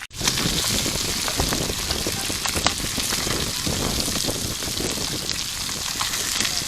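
Fish frying in hot oil: a steady, dense sizzle full of small crackles and pops, cutting in suddenly at the start.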